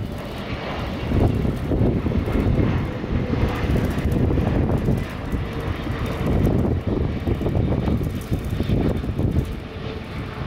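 Boeing 777-300ER's GE90-115B turbofan engines at approach power on final, a low jet rumble that swells and fades, with a faint steady hum running through it.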